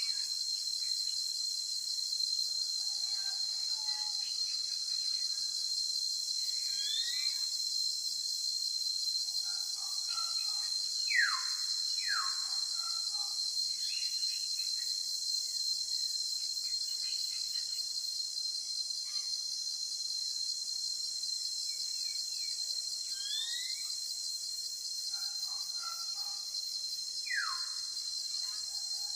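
Steady high-pitched insect chorus with scattered bird whistles over it: clear falling whistles and a few short rising chirps. The pattern repeats about every 16 seconds, as in a looped nature-ambience track.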